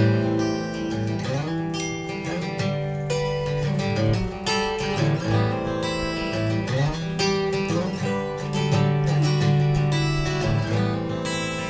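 Acoustic guitar strummed in a steady rhythm, an instrumental passage of a pop song without singing.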